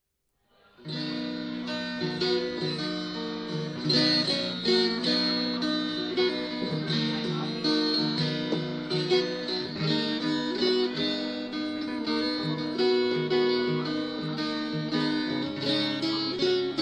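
Instrumental background music led by plucked acoustic guitar, starting about a second in.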